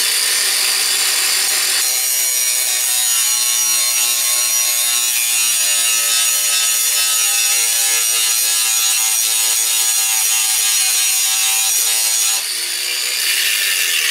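Cordless angle grinder running at speed with its disc grinding the rivet head off a steel chainsaw chain link: a loud, steady whine with a harsh grinding edge. The sound eases near the end as the grinding lets up.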